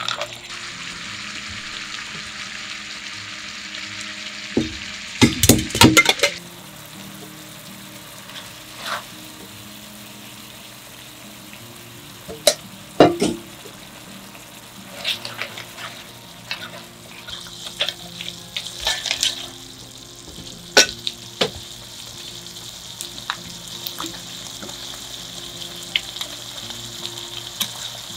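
Tomato and seafood sauce sizzling in a metal frying pan as cooked linguine is added and tossed in it with a wooden spoon. A burst of clattering knocks about five seconds in, then scattered clicks and scrapes, and the sizzle rises again in the second half.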